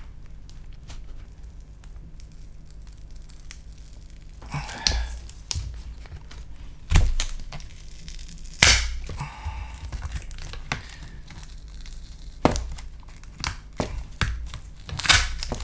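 Glued lithium-polymer battery cells being pried up and peeled off their adhesive inside a MacBook Pro case: scattered sharp cracks, clicks and tearing sounds, the loudest about 7, 9 and 15 seconds in.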